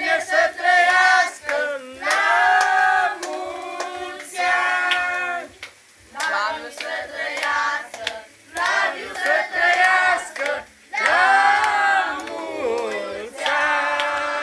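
A small group of voices singing a birthday song together, with hands clapping in time at about two claps a second.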